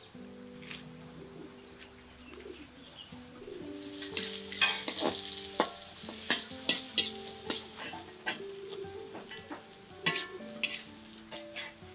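Oil sizzling in an aluminium wok while a metal spatula scrapes and clanks against it as shallots, garlic, chili and green beans are stir-fried. The sizzling and clanking start about three and a half seconds in. Soft acoustic guitar music plays underneath.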